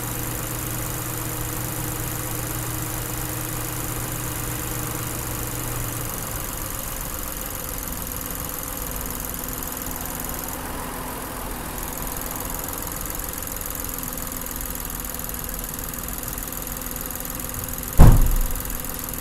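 Car engine idling steadily with the bonnet open, running on molybdenum-treated engine oil; a low hum in it drops away about six seconds in. A single loud thump comes near the end.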